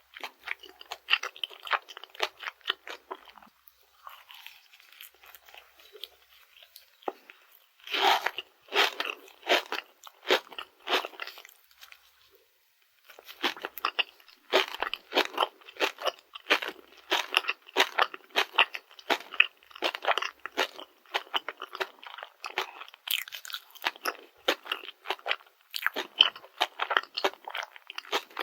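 Close-miked chewing of a Dubai-chocolate rice cake: its pistachio and kataifi filling crunches with each chew, in quick crackly runs broken by a couple of short pauses.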